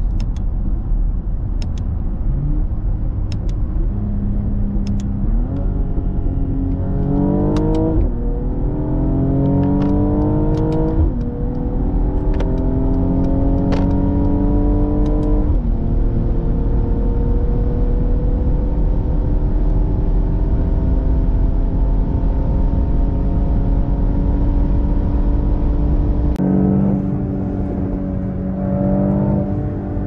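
Mercedes-AMG GLE 53's 3.0-litre turbocharged inline-six under hard acceleration, heard from inside the cabin over heavy wind and tyre rumble. The engine note climbs and falls back about three times as the automatic gearbox shifts up, then pulls on with a slowly rising note, and drops away suddenly near the end as the throttle is lifted.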